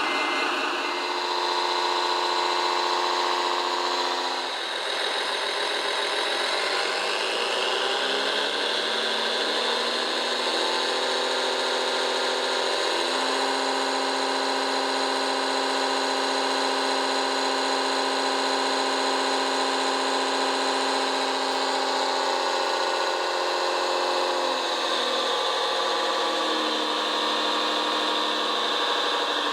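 RC model construction vehicle's engine sound, a steady engine-like drone that rises in pitch as it revs up a few seconds in, holds there, and drops back to a lower idle near the end.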